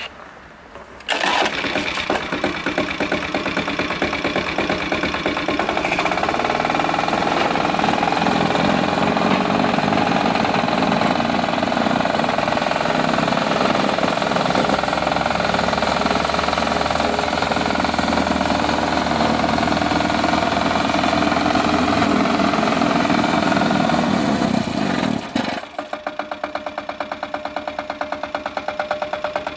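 Wacker DPU 2540 reversible plate compactor's single-cylinder Hatz diesel engine starting about a second in and running loud and steady. About 25 seconds in it drops back to a quieter idle with an even beat.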